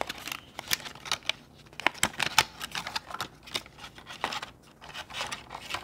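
Handling a fitness-band sports strap: irregular small clicks and light plastic rustling.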